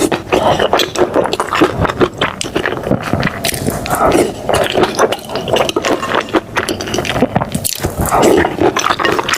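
Eating sounds: wet chewing and scraping, full of short clicks.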